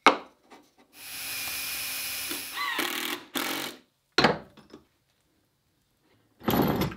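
A handheld power drill/driver runs in short bursts, driving fasteners, with its pitch sliding as the trigger is eased. A sharp knock at the start and another about four seconds in come as the wooden plate and then the cast-iron bench vise are set down on the bench.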